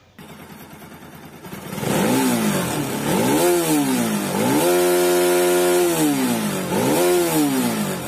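Bajaj Pulsar NS200's single-cylinder engine, revved in neutral with the bike standing still. It idles at first, is blipped twice, held high for a second or so, blipped once more, then drops back near the end.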